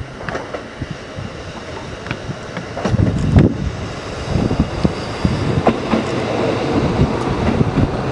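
JR Kyushu KiHa 125 single-car diesel railcar approaching and passing beneath, its engine and wheels rumbling on the track. Knocks come about three seconds in, and it grows louder as it draws close.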